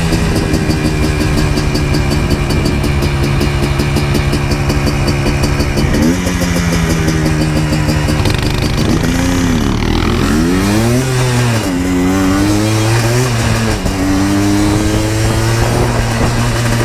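Yamaha Blaster 200 ATV's two-stroke single-cylinder engine running while the quad is ridden. It holds a steady pitch for about six seconds, then revs up and down several times as the throttle is worked.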